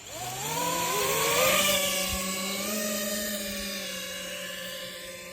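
FPV racing quadcopter's brushless motors spinning up from rest in a rising whine, then holding a steady whir that slowly fades.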